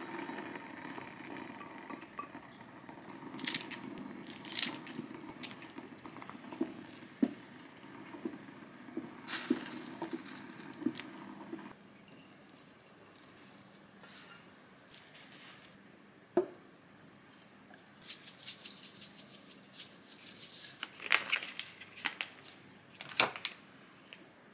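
Kitchen cooking sounds: steady low noise from a pot on the hob for the first half, then a spatula scraping food from a frying pan onto a ceramic dish. Later comes a quick run of light clicks, and a few ceramic clinks as small plates are set down near the end.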